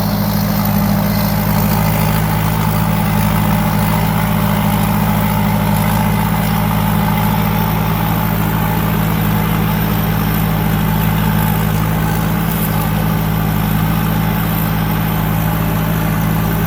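Thai Seng Super Jiw 165-horsepower combine harvester running steadily as it harvests rice, its engine holding an even, constant pitch.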